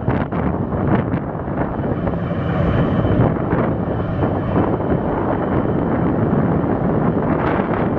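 Wind buffeting the microphone over the steady low hum of a ship's engines as the vessel manoeuvres away from its berth.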